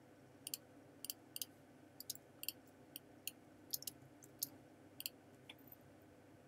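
Irregular clicking of a computer mouse and keyboard: a dozen or more sharp clicks, some in quick pairs, over a faint steady hum.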